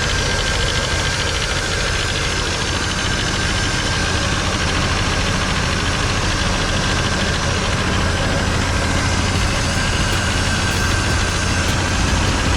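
1989 GMC Sierra's engine idling steadily, with a thin steady whine above the low running note; the owner suspects a loose pulley on the newly fitted belt drive.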